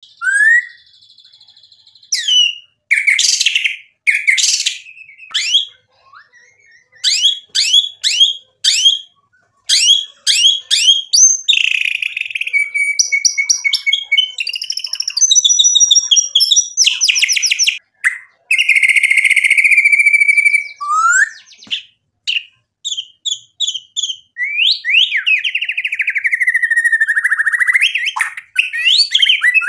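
Male white-rumped shama singing a long, varied song in quick phrases with short gaps between them: rapid runs of clipped notes and trills, rising and falling whistled glides, and a few longer held buzzy notes.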